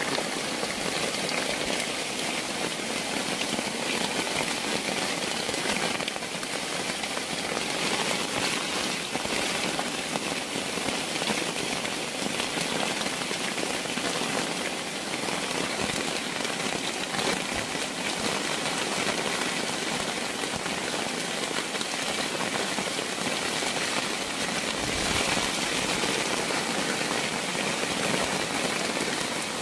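Rain falling steadily on forest leaves and ground, an even hiss of many drops.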